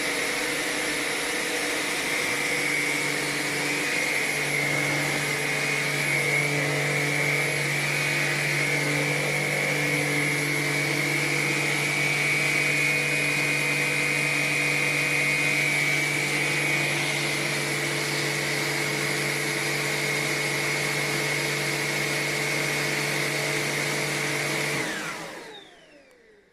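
Tineco A30S cordless stick vacuum running steadily with a high motor whine. Near the end it is switched off and the motor spins down with a falling pitch.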